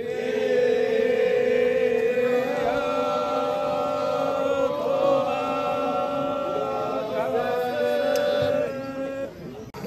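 Men's voices chanting in unison in long drawn-out notes that step to a new pitch every two or three seconds, the chant of a Japanese daimyō procession; it trails off shortly before the end.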